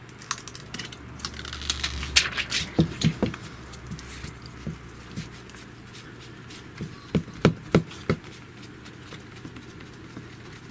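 Handling noise of a phone and its plastic screen-protector film: scattered small clicks and taps, with a group of louder taps a couple of seconds in and another three or four about seven seconds in.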